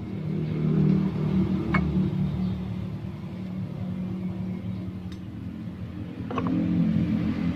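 Water heating in a small aluminium pot over a miniature wood-fired stove, giving a low, wavering rumble that swells about a second in and again near the end, with a few faint ticks over it.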